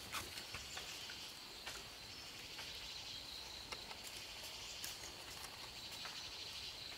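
Steady high-pitched insect chirring, with scattered light clicks and taps over it.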